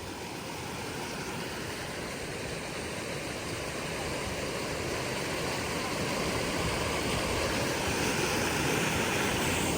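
River water rushing steadily, a continuous even wash that grows slightly louder over the few seconds.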